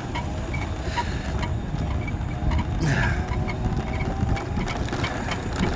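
Small off-road vehicle being ridden over rough ground, with a steady rumbling, rattling noise of running and travel and no clear engine note.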